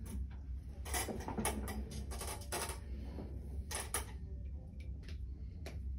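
Irregular light clicks and rustles of small objects and paper being handled, over a steady low hum.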